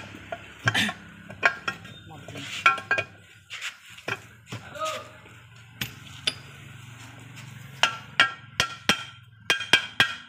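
Hammer striking the end of a gearbox shaft, tapping its new bearing down into the aluminium gearbox housing of a Maruti Suzuki Eeco: a few separate ringing metal strikes, then a quick run of taps near the end.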